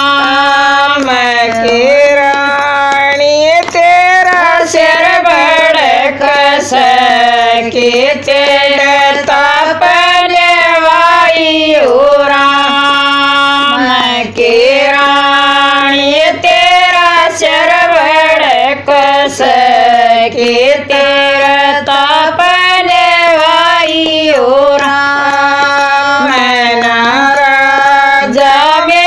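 Women singing a Haryanvi bhajan, a devotional folk song: one continuous melodic vocal line with short breaths between phrases.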